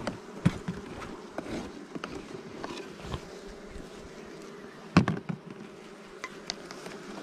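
Honey bees buzzing steadily over an open hive, with intermittent clicks and scrapes of a metal hive tool scraping burr comb off the wooden frame top bars. One sharp knock about five seconds in.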